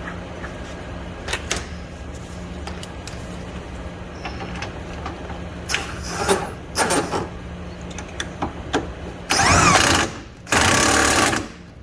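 Impact wrench fired in two bursts of about a second each near the end, tightening a rear shock absorber nut; before that, a few scattered clicks and knocks of the socket and tools being handled.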